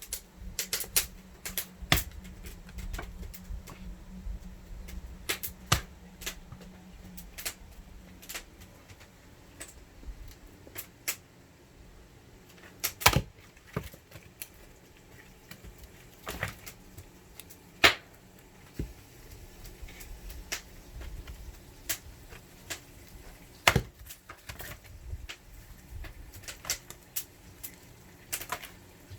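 Scattered sharp clicks and knocks at irregular intervals, a few much louder than the rest, over a low steady hum that dies out about eight seconds in.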